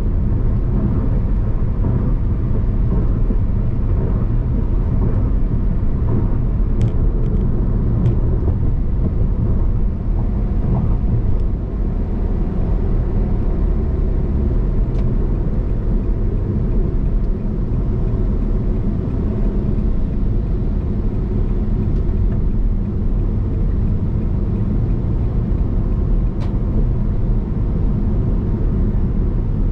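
A car driving at highway speed, heard from inside the cabin: a steady low rumble of engine and road noise, with a few faint ticks.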